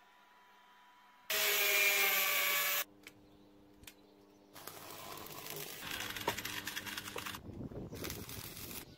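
Stick welder crackling as an arc weld is laid on steel chassis tubing, from about halfway through. Before it, about a second in, comes a short loud burst of whirring tool noise, followed by two clicks.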